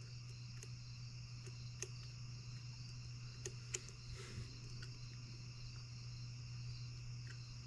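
Quiet room tone with a steady low hum and a high hiss, broken by a few faint light clicks of a small screwdriver turning the carburettor mixture screw on a model engine that is not running.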